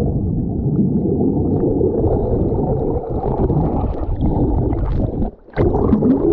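Muffled rushing and gurgling of seawater heard with the microphone under the surface. Near the end there is a short splash as it comes back up into the air.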